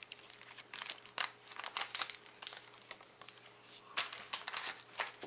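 Foil chocolate-bar wrapper crinkling as it is handled, in irregular crackling bursts that are loudest about four to five seconds in.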